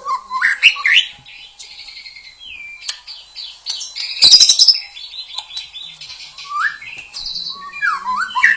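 White-rumped shama (murai batu) singing: short rising whistled notes mixed with rapid scratchy chattering, with a loud harsh burst about halfway through.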